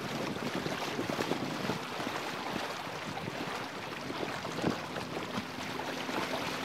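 Water rushing and splashing along the hull of a Lancer 25 sailboat under sail, with wind noise on the microphone.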